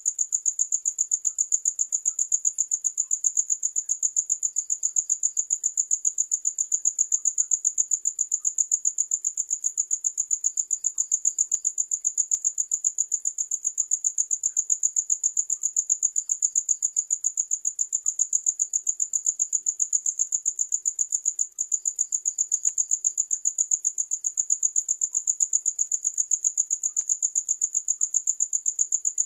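Crickets chirping: one high-pitched cricket calling continuously in fast, even pulses, several a second, with another cricket chirping faintly and on and off at a slightly lower pitch.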